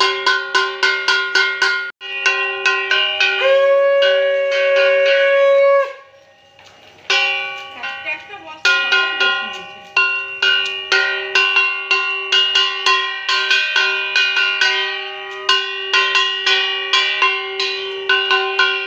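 A brass puja hand bell rung rapidly, about four to five strikes a second. A conch shell (shankha) is blown in one long steady note a few seconds in. After a brief lull just past the middle, the bell rings on steadily.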